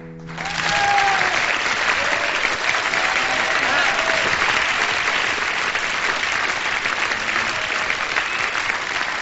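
Audience applauding after a song ends, a dense steady clapping that swells up within the first second, with a few cheers or whistles in it.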